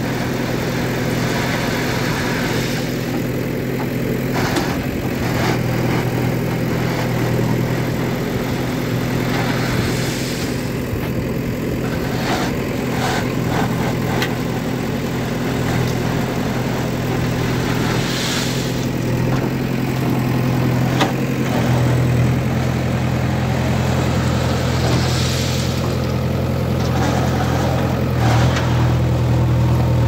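JCB 3DX backhoe loader's diesel engine running steadily under load as the backhoe bucket digs into a heap of crushed limestone, with stones scraping and clattering against the bucket. The engine note rises about two-thirds of the way through and again near the end as the arm works.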